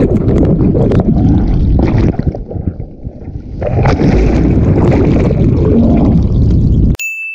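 Water rushing and churning against a waterproofed action camera as a water-jetpack rider dives in and out of the water, muffled while it is under the surface. The rush drops off about two seconds in and comes back loud near four seconds; near the end it cuts out abruptly and a single steady electronic beep sounds.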